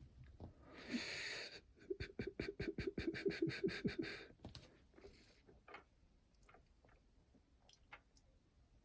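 A quick, even run of small clicks and rattles, about eight a second for a couple of seconds, then a few scattered faint clicks: hands working the parts of a clock radio/cassette player.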